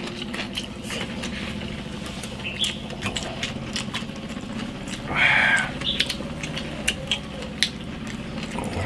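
Close-up eating sounds: chewing, with chopsticks clicking against rice bowls and a plate of braised pork belly. About five seconds in there is one louder rasping sound, and a steady low hum runs underneath.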